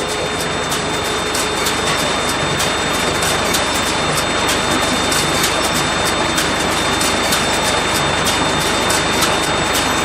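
New Holland round baler running empty off a tractor, with the tractor engine under it: a loud, steady mechanical noise with a thin whine on top. The baler is being run through a test cycle after servicing.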